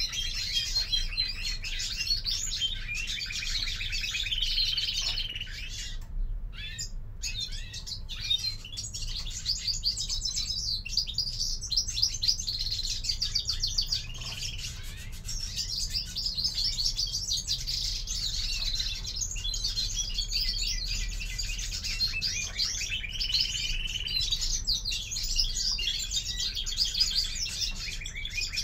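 Caged European greenfinches twittering and singing almost without a break, in fast runs of high trilling notes, with a short pause about six seconds in.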